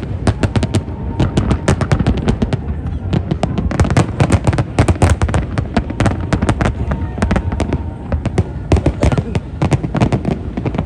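Fireworks going off in a dense, continuous barrage of sharp bangs and crackles, several a second, over a low rumble.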